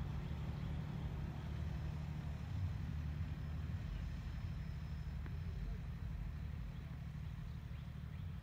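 Steady low rumble of a diesel freight train's locomotives.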